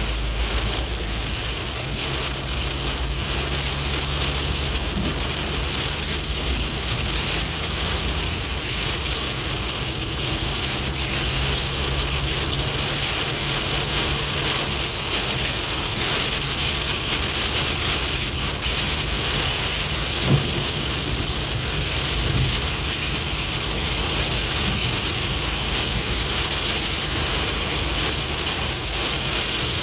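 Steady rain falling, an even hiss of drops on surfaces, with a single sharp thump about two-thirds of the way through.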